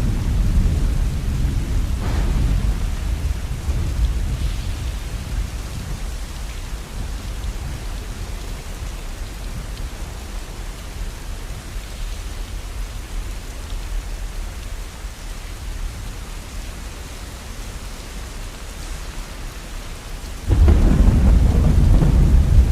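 Steady rain with rolling thunder: a low rumble that dies away over the first several seconds, then a new, loud rumble breaking in suddenly near the end.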